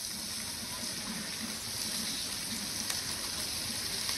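Green peas frying in oil in a steel pot, sizzling steadily as yogurt is poured in from a cup.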